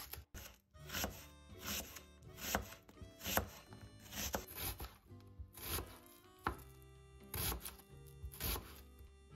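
Large kitchen knife slicing through a peeled onion onto a wooden cutting board, a crisp cut roughly once a second, over soft background music.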